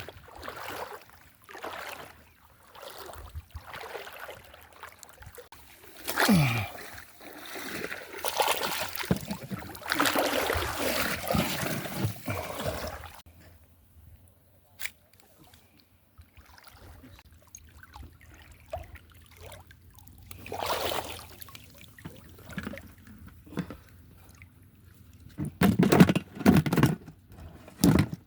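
Shallow water sloshing and splashing in irregular bursts, heaviest for several seconds in the middle, then a quieter stretch and a few more splashes near the end.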